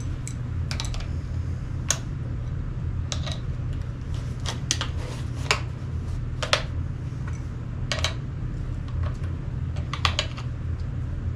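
Scattered sharp clicks and taps, about a dozen at irregular intervals, from a tool and metal parts being handled while the stock's backing plate is tightened down, over a steady low hum.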